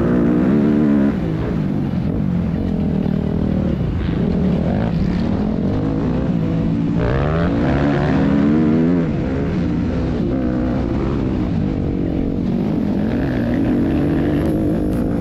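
Motocross bike engine, heard from the rider's helmet camera, revving up and down as he rides the track, with the pitch climbing sharply about seven seconds in. Wind and track noise sit under the engine.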